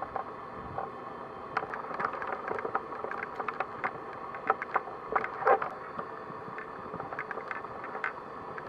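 Footsteps crunching through deep snow: irregular crisp crunches and crackles over a faint steady hiss, a little louder about five seconds in.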